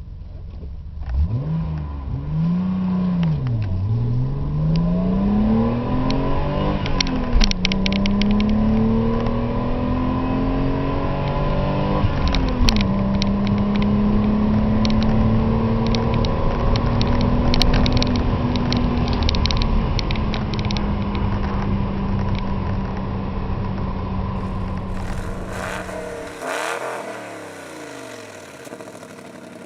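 BMW E32 7 Series petrol engine accelerating hard through the gears: the engine note climbs and drops back at shifts about seven and twelve seconds in, then climbs slowly and steadily before the throttle eases off and it winds down near the end.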